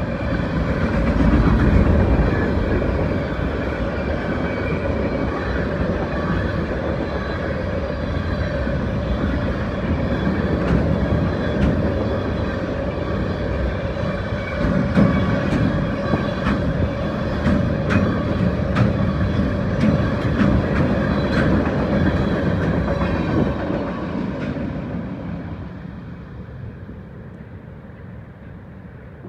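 Freight train of open-top hopper cars rolling past at speed: a steady rumble of steel wheels on rail with many sharp clicks, fading away near the end as the last cars pass.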